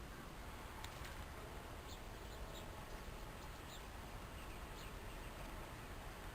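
Guinea pigs squeaking faintly in short, high chirps scattered over a steady background hiss, with a single faint click about a second in.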